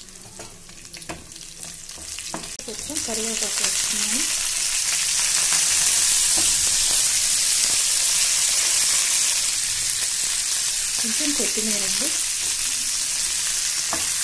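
Tempering in hot oil: mustard and cumin seeds, crushed garlic and dried red chillies frying with a few crackles, then a loud, steady sizzle from about three seconds in as curry leaves hit the oil, with a spatula stirring through the pan.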